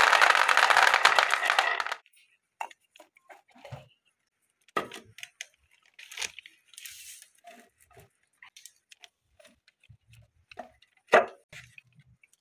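Glass marbles rattling down carved wooden zigzag tracks and clattering into a plastic tray, a dense run that stops suddenly about two seconds in. Then scattered clicks and knocks as wooden track pieces and the plastic tray are handled, with one sharp knock near the end.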